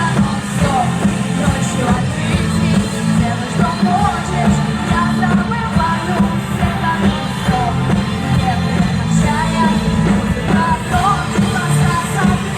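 A vocal-instrumental band playing a song, with singing over a steady, bass-heavy accompaniment.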